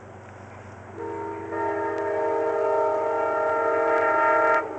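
Approaching Metro-North train sounding its air horn in one long blast: a lower note starts about a second in, the full multi-note chord joins half a second later, and it holds about three seconds before cutting off sharply. A low steady rumble of the train runs underneath.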